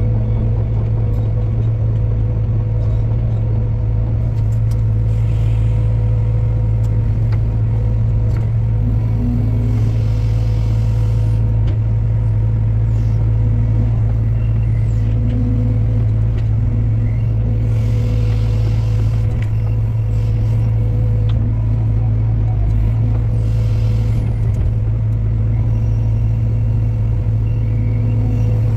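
Diesel engine of heavy lifting machinery (boom truck or excavator) running at a steady speed, a constant low drone, with a few brief faint hissing sounds over it.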